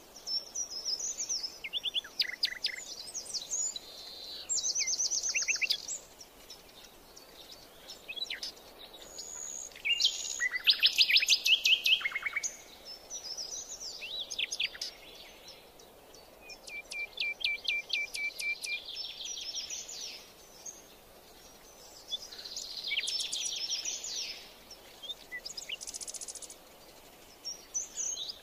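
Several birds singing and calling, in phrases of quick high chirps and trills every few seconds, the loudest about ten seconds in, over a faint steady hiss.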